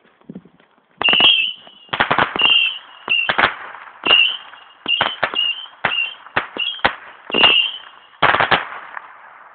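Saturn missile firework battery firing: a rapid string of short high whistles, each cut off by a sharp bang, about two a second, starting about a second in and tailing off near the end.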